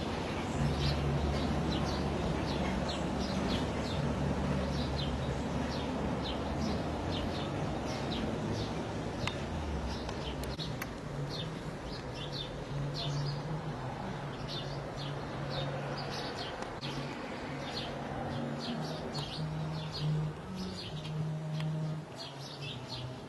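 Small birds chirping in quick, repeated short calls over a low, steady hum that fades after the first several seconds.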